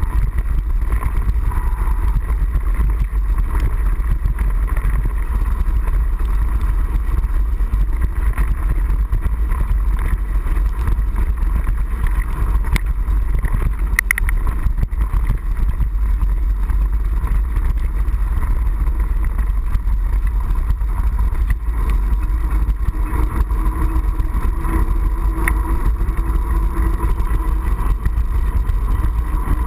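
Steady low rumble of wind and ride vibration picked up by a GoPro HD Hero mounted on a mountain bike's handlebar as the bike rolls down a gravel track and onto wet pavement, with a single sharp click about halfway through.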